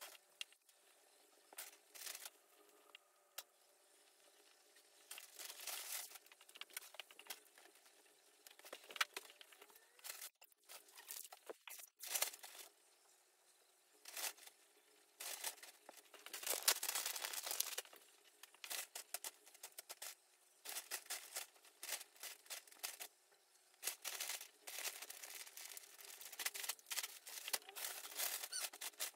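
Crinkly material being handled and rustled in many short, irregular bursts, fairly faint, over a faint steady hum.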